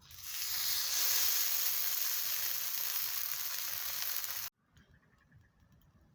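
Loud sizzling hiss, as of something hitting a hot surface over the fire. It swells in the first half second, holds steady, then cuts off sharply about four and a half seconds in.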